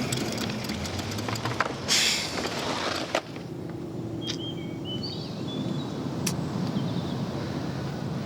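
Kick scooter rolling with rapid rattling clicks, then a loud rushing burst about two seconds in. After that comes a steady low outdoor background with birds chirping.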